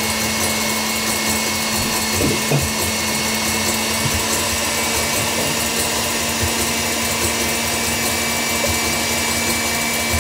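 Electric stand mixer running steadily at speed, whipping chickpea cooking water (aquafaba) into a foam: an even whir with a constant hum.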